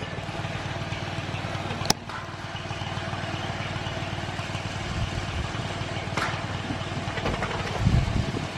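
An engine running steadily at low speed, a low hum with an even pulse. A sharp click about two seconds in and a fainter one about six seconds in.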